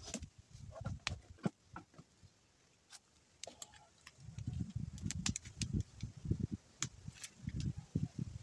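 Footsteps crunching over dry leaves and twigs, with scattered sharp crackles and clicks; from about halfway through, an uneven low rumbling gusts in and out.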